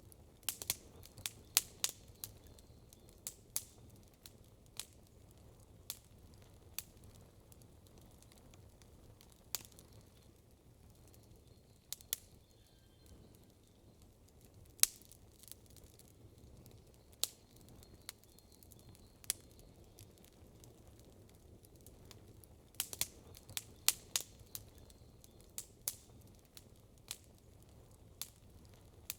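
Wood campfire crackling: irregular sharp pops and snaps, bunched in quick clusters near the start and again about three quarters through, with single pops between, over a faint low background rumble.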